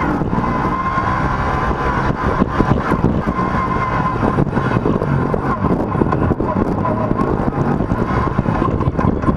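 Yamaha YXZ1000R side-by-side's three-cylinder engine running as it drives a rough dirt trail, heard from inside the cab. Frequent knocks and rattles come through as it goes over bumps, over a steady high whine.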